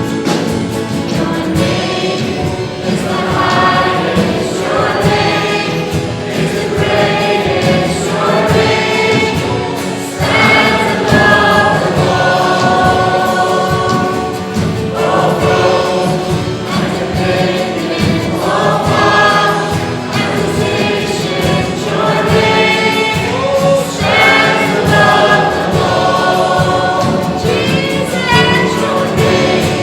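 A group of voices singing a worship song together, with instrumental accompaniment, steady and loud throughout.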